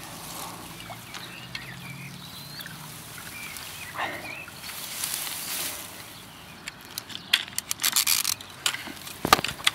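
Small birds chirping over steady riverside background noise. From about two-thirds in comes a run of rustles and sharp knocks as the handheld camera brushes through grass stalks, the loudest knock just before the end.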